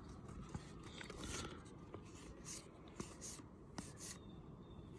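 Baseball trading cards being flipped through by hand: faint, short swishes of card sliding over card, with a few soft clicks.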